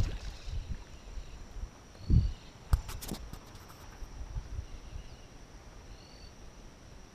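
Steady high-pitched insect buzz, crickets or similar, with a few short faint bird chirps. Low thumps, one about two seconds in, and a quick run of sharp clicks about three seconds in come from handling the bent fly rod while playing a hooked fish.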